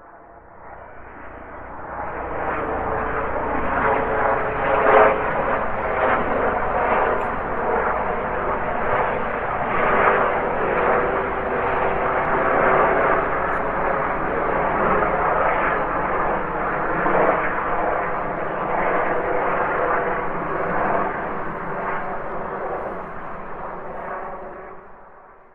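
Military helicopter flying over, its rotor and engine noise fading in over the first couple of seconds, holding loud, then fading away near the end.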